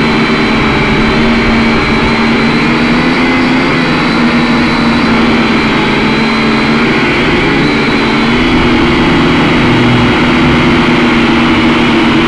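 Syma X5C toy quadcopter in flight, its four brushed motors and propellers giving a loud, steady buzzing whine, heard through the drone's own onboard camera. The pitch shifts a little about eight seconds in as the throttle changes.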